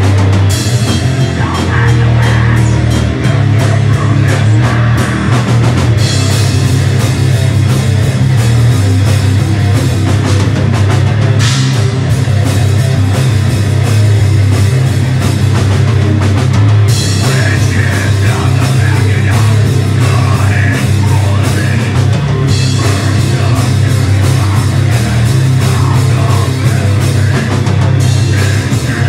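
Heavy rock band playing live, with electric guitar and drum kit. Cymbals come in and drop out in stretches of several seconds over a constant heavy low end.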